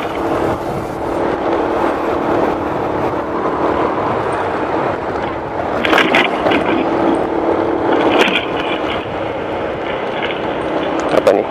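Motor scooter engine running steadily while riding, with wind noise on the microphone and a couple of short sharp bumps or rattles near the middle.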